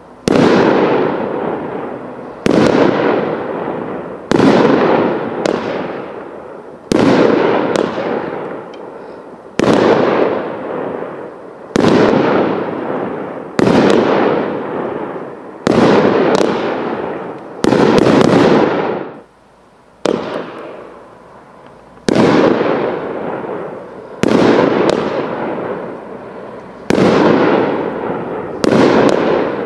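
A 200-gram 12-shot consumer firework cake firing shot after shot, about one every two seconds. Each shot is a sharp bang that fades away over a second or two.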